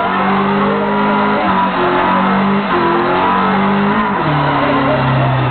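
Hyundai Accent's four-cylinder engine held at high revs during a burnout, the front tire spinning and squealing in the smoke. The engine pitch holds, dips and climbs again several times as the spinning tire's grip changes.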